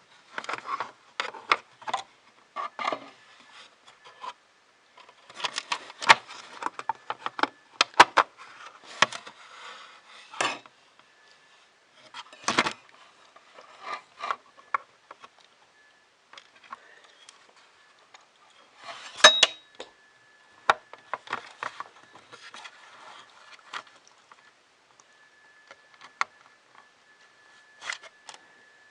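3D printer kit parts being handled and fitted by hand: irregular clicks, taps and short rattles, with sharper knocks about 6, 8, 12 and 19 seconds in.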